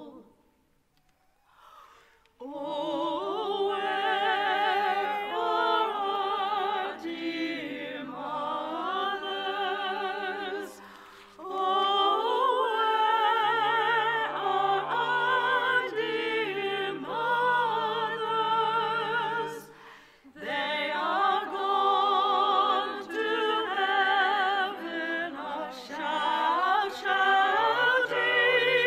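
Sung vocal music with a wide vibrato, in long phrases broken by brief pauses, over steady sustained low notes, starting after a couple of seconds of quiet.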